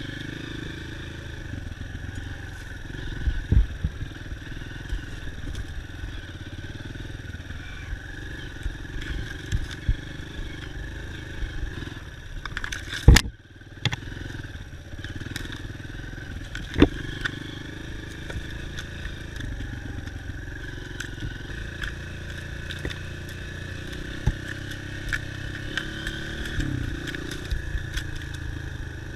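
Dirt bike engine running steadily while riding, with scattered sharp knocks and clatter. There is one loud knock about thirteen seconds in, followed by a brief dip in the engine sound.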